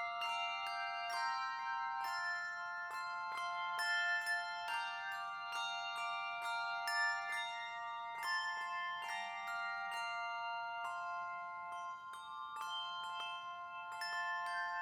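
Instrumental music on a bell-like tuned percussion instrument: a melody of high struck notes that ring on and overlap, with no singing.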